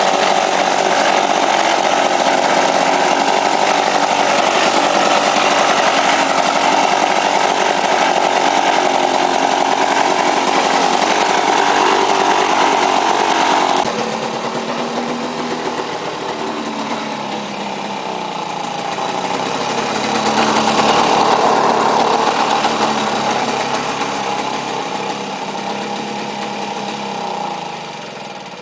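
Lawn-Boy 5247 mower's two-stroke engine running while mowing grass. It is loud and close at first, quieter after about half-way with a swell a little later, and dies away near the end as the engine shuts down.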